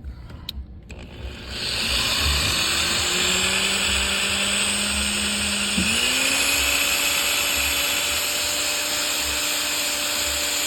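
Electric drill running as it bores into the car's steel transmission tunnel floor. The steady motor whine starts about a second and a half in, dips sharply near the middle as the bit loads, then settles at a higher pitch.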